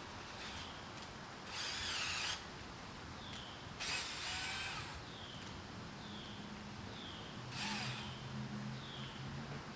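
Cordless drill boring into a tree trunk in three short bursts, each about a second long or less.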